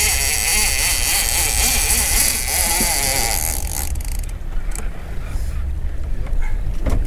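Heavy big-game fishing reel's drag buzzing as a hooked bluefin tuna pulls line off, cutting off suddenly about four seconds in, over wind rumbling on the microphone.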